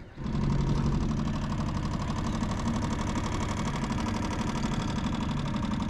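Mercury F3.5 single-cylinder four-stroke outboard motor running steadily with a fast even beat, comes in suddenly just after the start.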